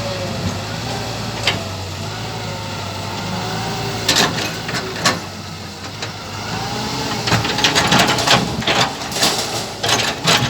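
Radio-controlled Hitachi 120 model excavator's small motors running with a steady hum and a whine that slowly wavers in pitch. Sharp clacks and knocks come now and then, thickening into a clatter in the second half.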